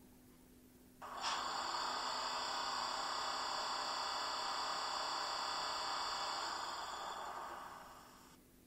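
The Roco H0 class 628.4 diesel railcar model's digital sound decoder plays its air compressor sound (function F5) through the model's small onboard speaker. It is a steady running noise that starts suddenly about a second in and fades away near the end.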